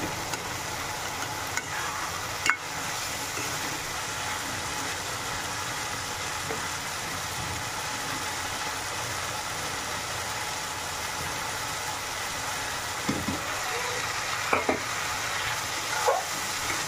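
Peas and tomato sizzling in a kadhai with a steady hiss, the water cooking off, while a metal spatula stirs the pan. A sharp clack about two and a half seconds in and a few knocks of the spatula against the pan near the end.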